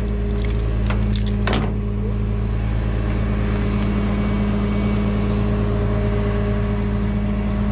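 Tow truck's engine idling steadily. A few sharp metallic clicks and clanks in the first second and a half come from the tie-down strap and its hook being handled.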